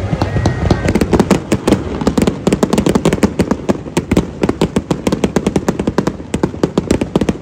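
Aerial fireworks crackling: a rapid, continuous string of sharp pops and bangs, several a second, that starts about a second in and keeps going.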